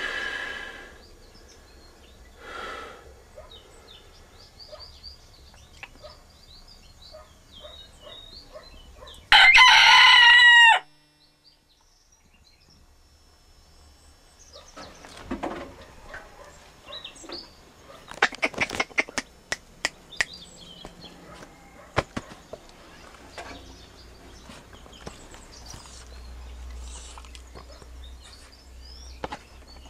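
Rooster crowing once, a loud cock-a-doodle-doo lasting about a second and a half, about a third of the way in. Softer calls come before it, and a run of sharp clicks and scuffs follows later.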